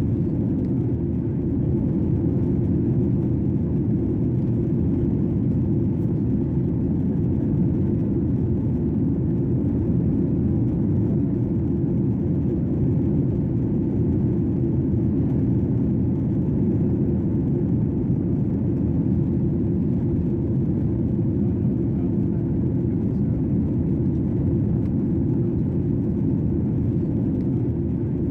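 Steady low rush of an airliner's cabin in flight: engine and airflow noise heard from a window seat, even throughout with most of its weight in the low range.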